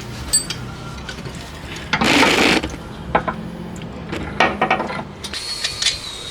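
Hand socket ratchet clicking in short runs as a suspension bolt is turned, with a few metal tool clinks and one louder rasping burst about two seconds in.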